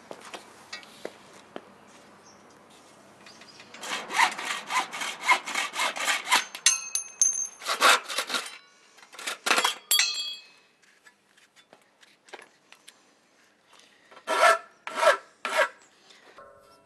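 Hacksaw cutting through an aluminium door track: a run of quick back-and-forth strokes, with a brief high ring partway through. After a pause come a few more strokes, then three slower strokes near the end.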